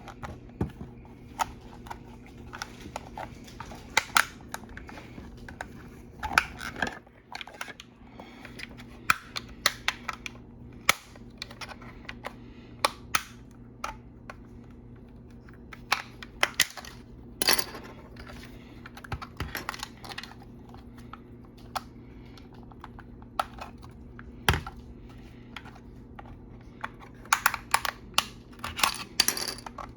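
Irregular clicks and taps of small hard plastic parts being handled and fitted on an Xbox Series X controller during a bumper replacement, with a cluster of quick clicks near the end. A faint steady hum runs underneath.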